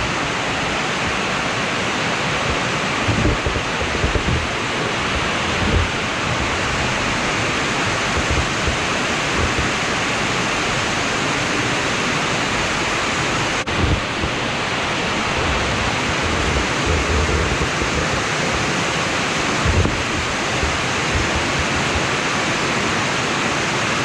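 Steady rushing of a 25-metre waterfall, with a few low bumps of wind on the microphone.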